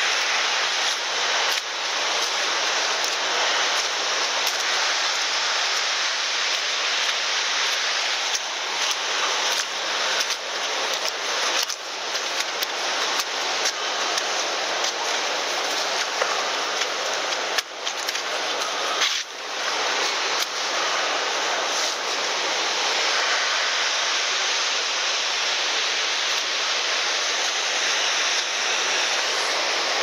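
Steady rush of a large waterfall, Gullfoss, pouring close by, an even roar of falling water with a few soft knocks along the way.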